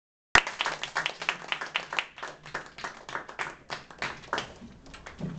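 A small audience clapping: distinct claps starting all at once, then thinning out and dying away near the end.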